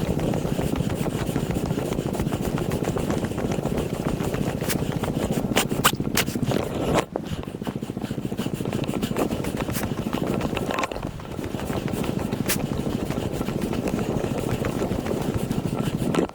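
Steady low rumble of wind buffeting the microphone, with a few sharp clicks and scrapes about five to six seconds in and once more past the middle.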